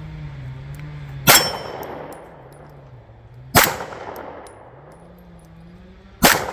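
Three single pistol shots, about two and a half seconds apart, each echoing off the range. Faint metallic pings of steel targets being hit follow them. The pistol is having failures to feed and eject.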